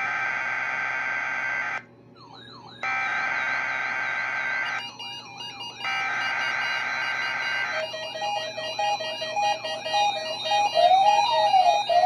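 Three loud bursts of NOAA Weather Radio SAME digital header data, harsh buzzing screeches about two seconds each with short gaps between them, coming through a Reecom weather alert radio's speaker. They encode a Required Weekly Test. About two-thirds of the way in, the radio's own alert starts: alternating beeps that turn into a tone sliding up and down.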